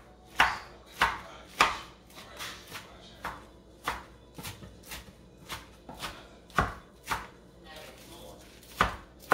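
Kitchen knife rough-chopping spinach, ham and cheese on a wooden cutting board: irregular sharp knocks of the blade hitting the board, about one or two a second, a few much louder than the rest.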